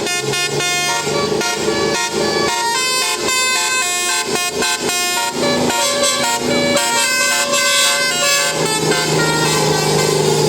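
Indonesian bus 'telolet' musical air horn playing a quick tune of short, stepped notes, loud, with a steadier low drone coming in near the end.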